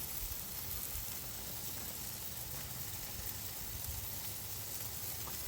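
Steady sizzling hiss of meat and potatoes cooking on a gas grill.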